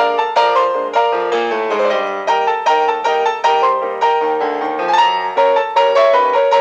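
Background piano music: a steady run of plucked-sounding piano notes in an even rhythm.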